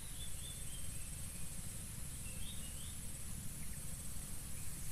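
Insects droning steadily in a high, even buzz, with a few short chirps about a second apart early on and again near the middle.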